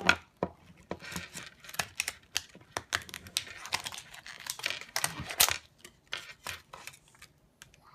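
Small plastic toy ponies being handled and set down on a wooden tabletop, with crinkling of clear plastic packets: an irregular run of light clicks, taps and rustles.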